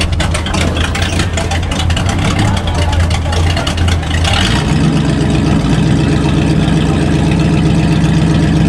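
V8 exhaust of a white 1970s Chrysler coupe idling steadily. About halfway through, its note shifts lower and deeper.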